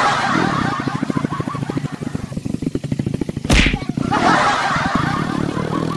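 A small motorcycle engine running with a fast, even pulse, while a person crashes into a shallow ditch of water: splashing at the start, a sudden hard thud about three and a half seconds in, then more splashing and churning water.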